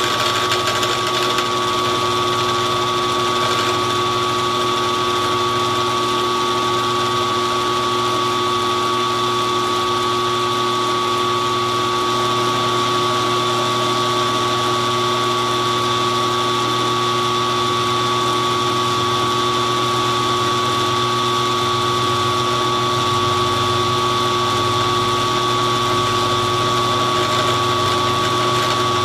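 Milling machine running steadily with a constant whine, its cutter taking a slow finishing pass across an aluminum bender frame.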